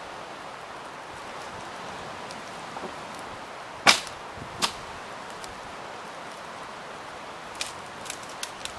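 Campfire wood popping: one loud sharp crack about four seconds in, a smaller one just after, and a quick run of small pops near the end, over a steady background hiss.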